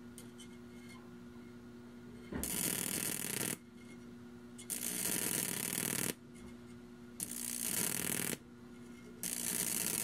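High-voltage arcs from a microwave-oven transformer with a voltage doubler at about 5,000 volts, drawn between two wire electrodes: four loud buzzing arcs of one to two seconds each over a steady transformer hum. The arcs are hot enough to melt the wire tips into balls of molten metal.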